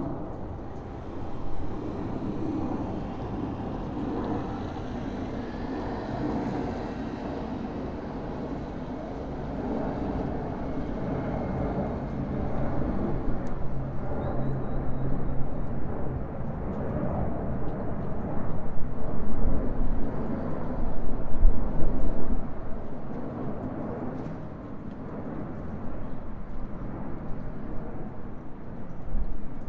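Low, continuous rumble of an airliner passing overhead against distant city traffic noise. It swells to its loudest a little past the middle, then eases off.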